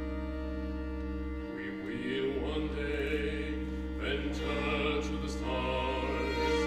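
Live contemporary chamber music: held chords from bowed strings and organ over a low sustained bass. Sung voices with vibrato come in about a second and a half in and again near the end.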